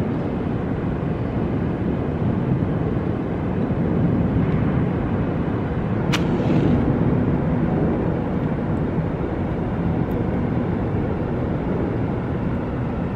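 Steady low rumbling background noise. About six seconds in there is a single sharp strike of a match being lit to light a cigar.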